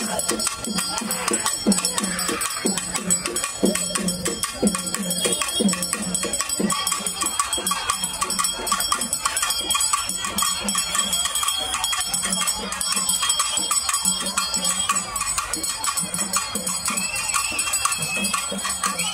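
Rapid, continuous festival procession drumming with bright metallic clanging over it.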